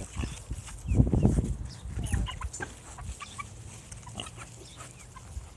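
Pig grunting, with the loudest grunt about a second in and a softer one near two seconds. Short high bird calls are scattered throughout.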